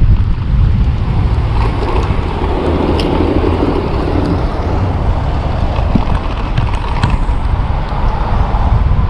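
Wind buffeting the handlebar-mounted action camera's microphone on a moving electric bike, a heavy steady rumble mixed with road noise. A louder rush swells about two seconds in and fades out a couple of seconds later, and a few light clicks come through.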